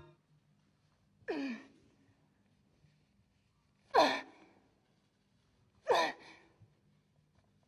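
A woman's wordless voice: three short sighing cries about two seconds apart, each falling steeply in pitch.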